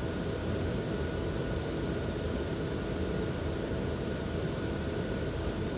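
Steady whirring hiss of the electric blower fans that keep inflatable Christmas decorations up, with a faint steady hum.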